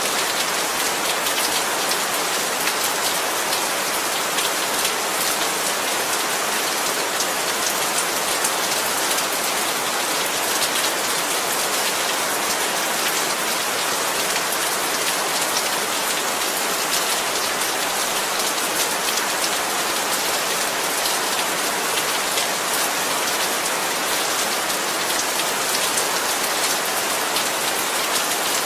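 Heavy rain falling steadily, a dense hiss of drops hitting surfaces with fine ticks of individual drops throughout.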